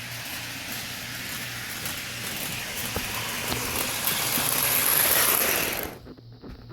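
Lionel R30 subway train running on three-rail O-gauge track: a steady noise of motors and wheels with scattered clicks over the rails, growing louder for a few seconds and then dropping away sharply near the end.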